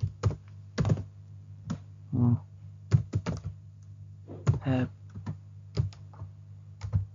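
Typing on a computer keyboard: irregular single key clicks, some close together, with a steady low hum underneath.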